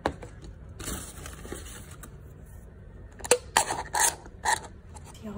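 Hands handling a paper takeaway bag, a plastic drink cup and a straw: a click at the start, light rustling, then a cluster of sharp crinkling and tearing sounds about three to four and a half seconds in.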